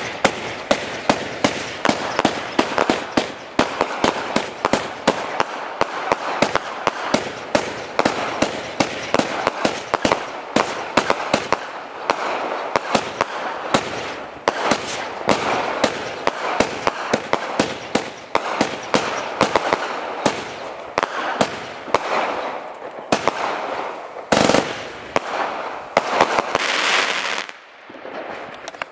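Comet 'Deep Impact (Wild Cat)' 49-shot firework battery firing its shots in quick succession: a steady run of sharp bangs, about two a second, with a constant rushing noise between them.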